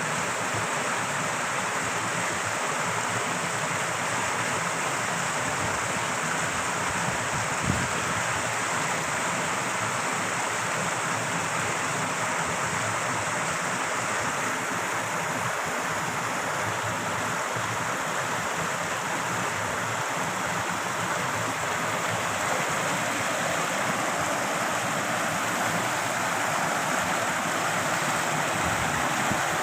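Torrential running water rushing steadily, with one brief knock about eight seconds in.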